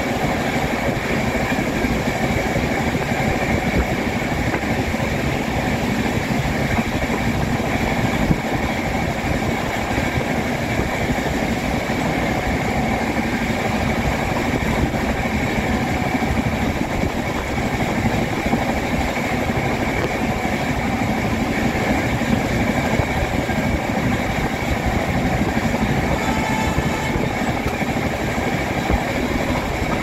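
Train running at speed, heard from on board: the steady, unbroken noise of its wheels on the rails.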